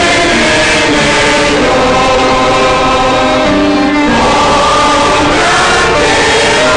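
Church choir singing in several voices, holding long notes that move to a new chord every second or two.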